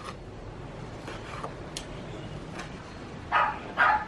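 A dog barking: faint barks, then two loud barks about half a second apart near the end.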